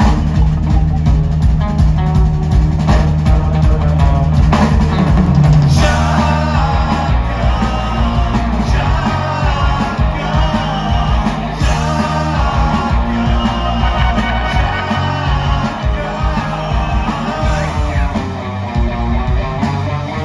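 Live rock band playing loudly: drum kit and guitars over a heavy bass line.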